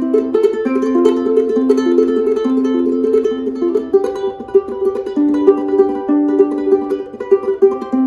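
Bamboo BU23 Blossom acoustic concert ukulele with an okoume body, played unplugged. It picks out a melody of clear, ringing single notes that overlap as they sustain.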